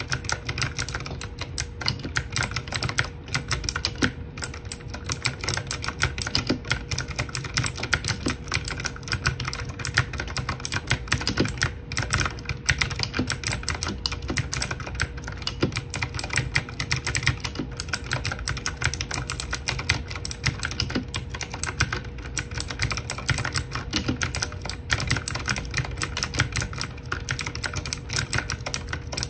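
Fast, continuous typing on an E-Element Z-88 mechanical keyboard with blue switches: a dense, unbroken stream of clicky keystrokes.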